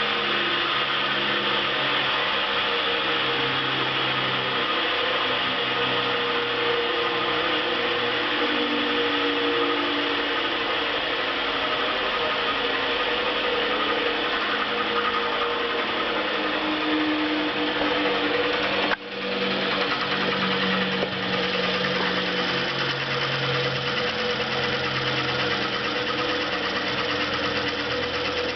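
1912 TUEC Model 210 central vacuum cleaner, a single large impeller driven by an electric motor, running steadily with a hum and rushing air. Near the two-thirds mark the sound drops suddenly for a moment and comes straight back.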